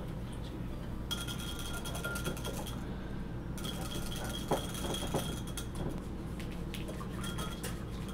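Wire whisk beating heavy cream in a glass measuring cup: rapid metal-on-glass ticking and clinking with a faint ringing, starting about a second in with a brief pause near the middle. A steady low hum runs underneath.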